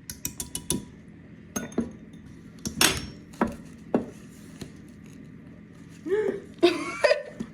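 A utensil knocking and clinking against a mixing bowl while stirring a thick cookie dough, in a handful of separate sharp knocks, the loudest about three seconds in. A voice is heard briefly near the end.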